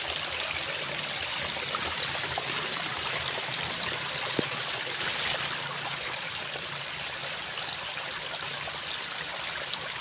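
Waterfall water rushing and splashing, a steady even hiss, with one short click about four seconds in.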